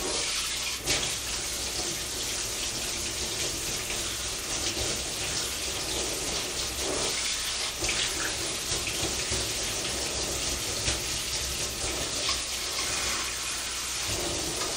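Kitchen tap running steadily into the sink as soaked beef for soup is rinsed under the water.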